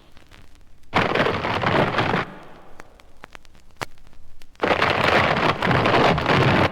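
Sound-effects recording of a thunderstorm: two crashes of thunder, each starting suddenly and lasting one to two seconds, with quieter rain-like hiss and vinyl record crackle between them.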